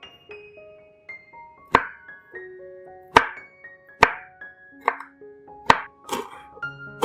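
A knife chopping on a cutting board: about six separate strokes at an uneven pace, roughly one a second, over light background music with held piano-like notes.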